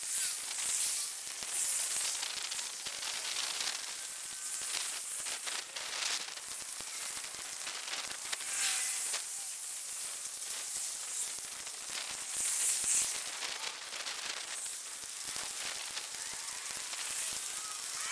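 A steady hiss with many quick crackling clicks all through, and a few faint, brief chirping tones.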